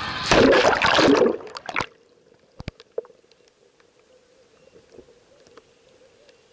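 Loud rushing and splashing of water around a waterproof Sony action camera, which cuts off suddenly about two seconds in as the camera goes under. After that the sound is muffled and quiet underwater, with a faint steady hum and a few light ticks.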